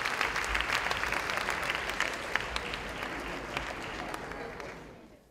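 Audience applauding in a theatre, a dense patter of many hands clapping that fades out near the end.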